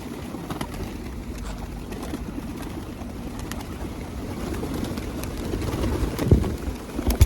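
Pigeons cooing, a steady low sound, with two louder short thumps near the end.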